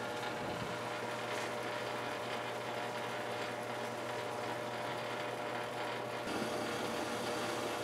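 Metal lathe running at a slow spindle speed, about 280 RPM: a steady motor and drive hum as a straight-fluted chucking reamer is fed gently into a brass workpiece. The tone shifts slightly about six seconds in.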